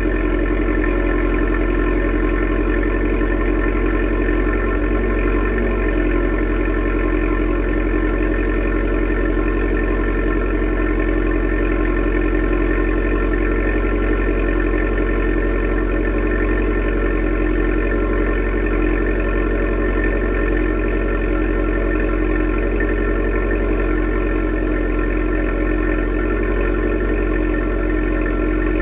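2012 Abarth 500C's turbocharged 1.4-litre four-cylinder idling steadily after a cold start, heard at the tailpipes of its stock (factory) exhaust. It is loud for an idling car, which the owner counts as a level to be careful with in a residential street early or late in the day.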